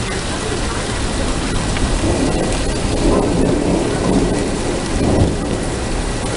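Rain falling steadily, with a low rumble of thunder that builds about two seconds in and dies away near the end.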